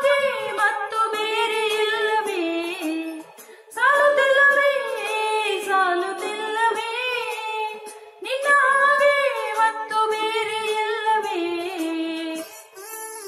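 A woman singing solo and unaccompanied into a handheld karaoke microphone: three long melodic phrases, each starting loud and high and winding downward with ornamented turns.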